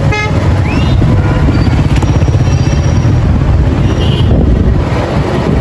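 Steady low rumble of road and wind noise from a moving vehicle.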